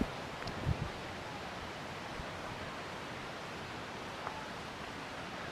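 Steady rushing of the Kuang Si waterfall's cascades, an even wash of falling water, with a couple of low bumps in the first second.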